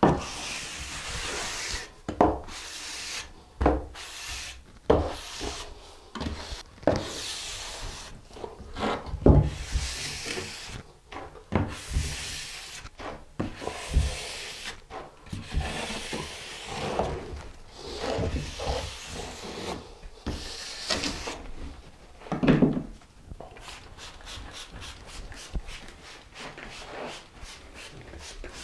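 A hand float scraping across damp sand-mix mortar in repeated strokes about a second apart as a shower pan is smoothed flat. Near the end comes a quick run of short hisses from a spray bottle wetting the surface.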